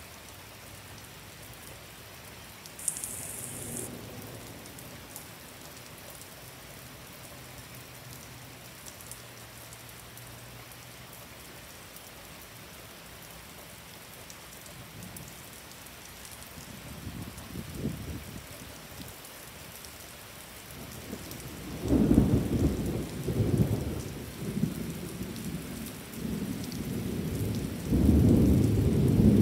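Heavy thunderstorm rain with a steady hiss, and a brief sharp noise about three seconds in. Thunder starts rumbling softly about halfway through and builds into loud rolling peals near the end.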